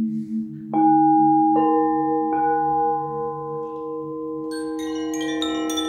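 Meditation background music: a steady low drone, then three bell-like tones struck in quick succession about a second in, each ringing on. A run of high, quick chime notes comes in near the end.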